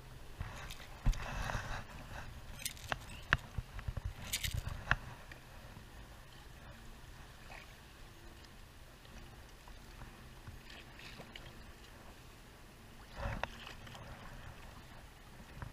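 Sharp clicks and knocks of a fishing rod and reel being handled in a kayak during the first five seconds, then a low steady wash of water against the hull, with a short rustling thump about thirteen seconds in.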